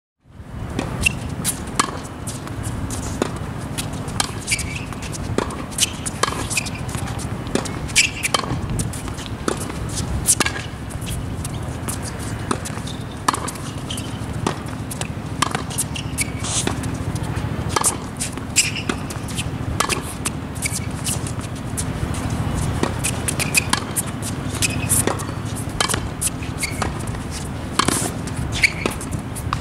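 Tennis ball struck by rackets in a net volley drill: a string of sharp pops, irregularly spaced, roughly one every second or two, with balls bouncing on the hard court. A steady low rumble lies underneath.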